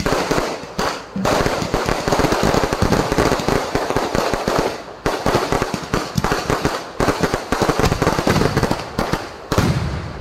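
Fireworks display: a rapid, dense barrage of bangs and crackling from aerial shells bursting overhead, with a few brief lulls.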